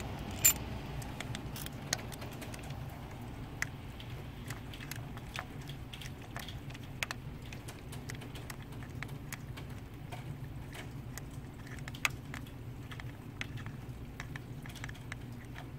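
Scattered, irregular small clicks and taps of hand tools and metal parts being handled on a diesel engine while an injector hold-down bolt is fitted, with a sharper click about half a second in. A steady low hum runs underneath.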